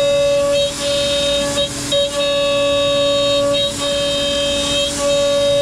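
CNC router spindle whining at a steady high pitch while cutting ash, with a vacuum running alongside; the tone dips briefly several times as the cut changes.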